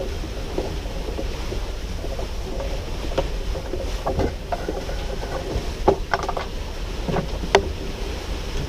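Wind buffeting the microphone aboard a sailboat under way, with water washing along the hull. Scattered sharp knocks from the boat, the loudest about six and seven and a half seconds in.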